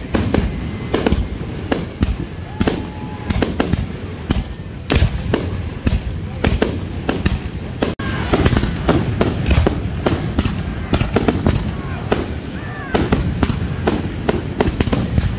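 Aerial fireworks display: shells bursting in a dense, rapid barrage, several sharp bangs and crackles a second without let-up, with a momentary break about eight seconds in.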